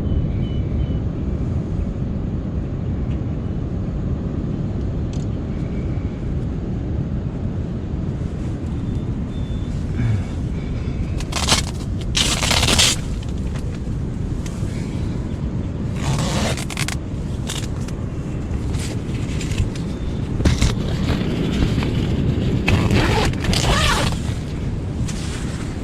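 Storm wind buffeting the microphone in a steady low rumble, with ocean surf behind it. Several louder hissing surges of a second or so come in the second half.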